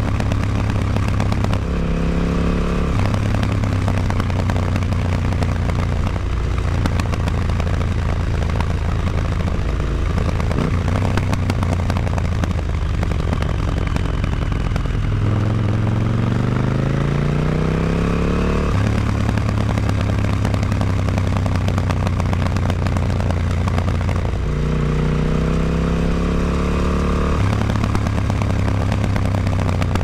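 KTM 950 Adventure's V-twin engine through an Akrapovic exhaust with the dB killer fitted, running at a steady pitch and rising in pitch three times as the throttle is opened, the longest rise about halfway through.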